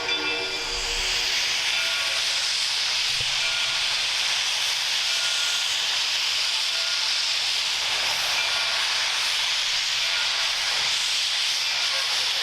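Lima-built Shay geared steam locomotive hissing steadily as steam vents.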